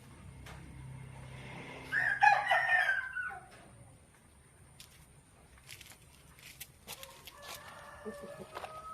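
A rooster crows once, about two seconds in, a loud call lasting about a second and a half. Fainter calls and small clicks follow near the end.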